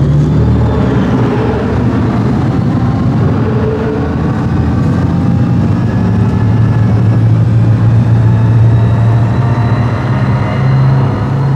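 Tracked armoured vehicle's engine running as it drives off, with a high whine that slowly rises in pitch; the engine note steps up about ten seconds in.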